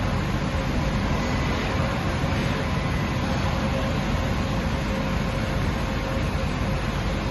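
Deckel Maho DMC 100H horizontal machining centre running under power: a steady mechanical hum and hiss with a faint, even high whine running through it.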